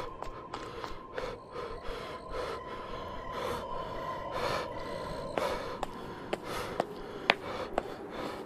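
Heavy breathing and gasps, repeated about every half second, with scattered sharp clicks and a faint steady tone underneath.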